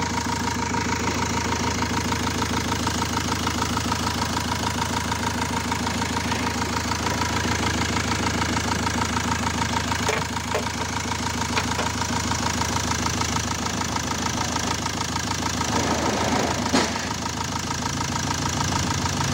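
Peugeot Boxer III's four-cylinder common-rail diesel engine idling steadily with a fast, even clatter. One sharper click near the end.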